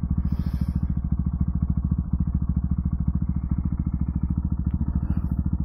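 Husqvarna 701's single-cylinder engine running at a steady cruise, with a fast, even pulsing beat and no revving up or down.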